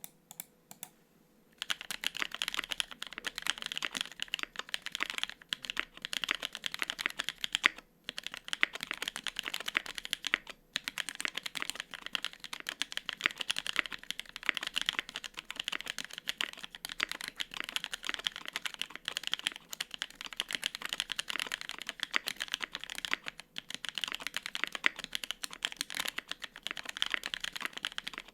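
Fast continuous typing on a gasket-mount 75% mechanical keyboard with lubed NK Cream linear switches, GMK keycaps and an aluminium plate: a dense stream of key clacks, with a few keystrokes just before it and brief pauses about 8 and 10.5 seconds in.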